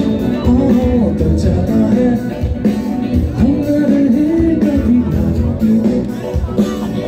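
Loud live rock music over the festival PA: a singer's voice over guitar and a steady drum beat, picked up from within the crowd.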